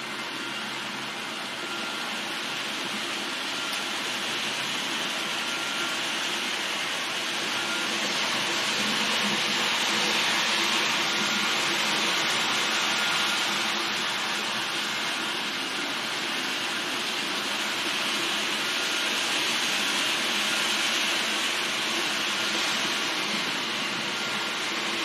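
H0-scale model train (a Roco ÖBB Rh 1216 Taurus electric locomotive with sound decoder, pulling eight four-axle tank wagons) running on the track: a steady rolling hiss and rumble of wheels on rails with faint steady tones from the locomotive's sound. It grows louder to its loudest around the middle and then eases a little.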